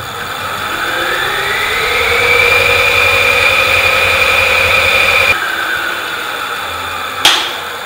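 Electric bike's rear hub motor spinning up under the Adaptto controller's motor-detection test: an electric whine rising in pitch over about two seconds, then holding steady at speed. About five seconds in the drive cuts off suddenly as the test ends and the wheel winds down, with one sharp click near the end.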